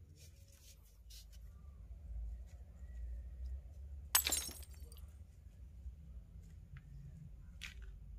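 Paracord being handled over a cutting mat: soft rustles and small clicks, with one short, crackling rustle about four seconds in that is the loudest sound.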